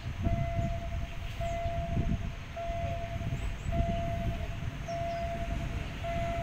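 Railway warning beeper sounding a repeated single-pitched electronic beep, each beep nearly a second long with a short gap, about once a second, the alarm that a train is approaching. A low, gusty rumble runs underneath.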